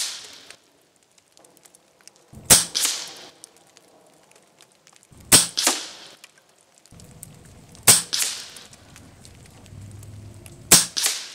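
RTI Arms Priest 2 PCP air rifle firing four shots about every three seconds. Each shot is a sharp crack followed a fraction of a second later by a second crack.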